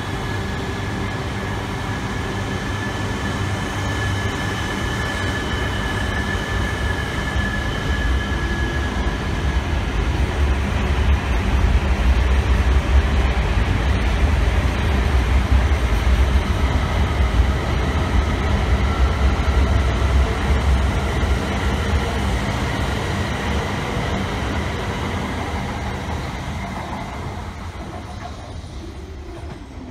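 Tohoku Shinkansen bullet trains running through a station: a steady electric whine over the rumble of the wheels on the rails. The rumble grows louder midway and fades away near the end as the train moves off.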